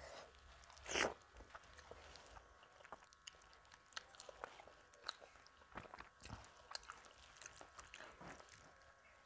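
Close-miked eating sounds: a person chewing mouthfuls of rice and jackfruit curry eaten by hand, with many small, irregular wet mouth clicks. There is one louder short sound about a second in.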